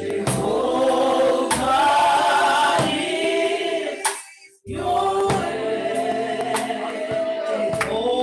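Church congregation singing a worship song together, with sustained sung notes. The sound cuts out suddenly for about half a second a little after four seconds in.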